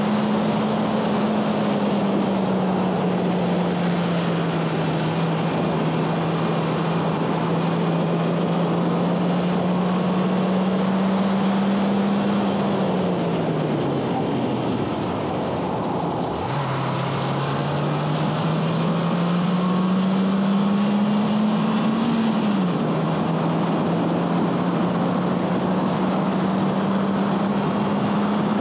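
2011 Honda Fit Sport's 1.5-litre four-cylinder engine running hard at high revs on track, over a steady rush of noise. About halfway through the engine note falls away for a couple of seconds, then comes back and climbs steadily. About three-quarters through an upshift drops the pitch sharply, and the note starts climbing again.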